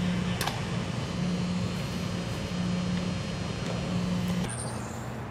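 Rumbling background noise of a large indoor sports hall, with a low hum pulsing on and off about every second and a half, and one sharp smack of a baseball into a fielder's glove about half a second in. The noise drops to a quieter hiss near the end.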